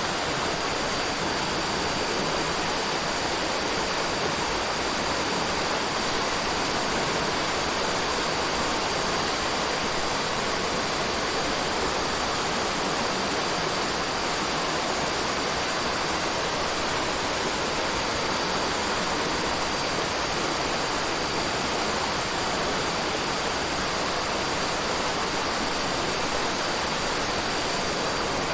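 Forest ambience made up of a steady, even rush of running water, with a thin steady high whine over it.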